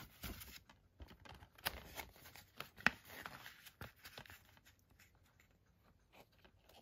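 A printed paper cover sleeve rustling and sliding against a plastic Blu-ray keep case as it is handled, with scattered soft clicks and taps and one sharper click about three seconds in. It goes quieter in the last couple of seconds.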